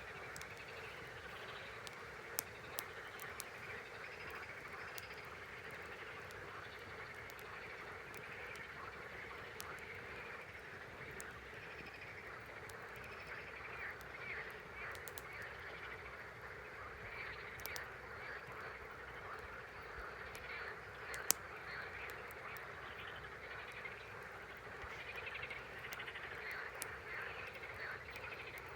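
Campfire crackling, with scattered sharp pops; the loudest come about two and a half seconds in and about two-thirds of the way through. Behind it is a steady chorus of calling animals, dense and chattering.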